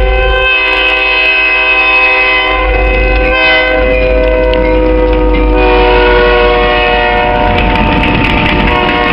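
Diesel locomotive's multi-chime air horn blowing long held blasts, the chord changing twice, over a low engine rumble. Near the end, the rushing noise of the passing train cars rises.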